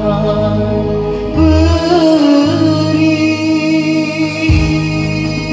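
A song sung in Malay/Indonesian over instrumental backing with a bass line. The voice holds long, wavering notes.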